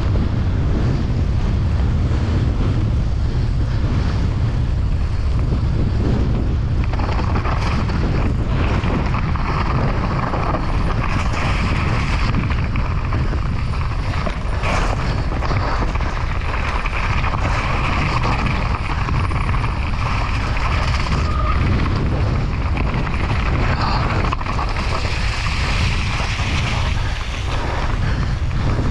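Steady wind noise buffeting an action camera's microphone as a mountain bike descends at speed over rough grass, with a few sharp knocks from the bike over bumps.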